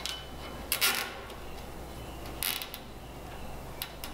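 Nylon zip ties being pulled tight around metal electrical conduit: two short ratcheting zips about a second and a half apart, then a small click near the end.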